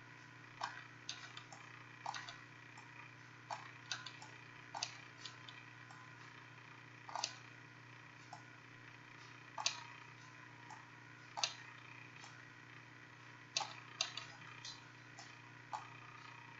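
Irregular single clicks of a computer mouse and keyboard, roughly one a second, as pieces of an image are selected and deleted. A faint steady hum lies underneath.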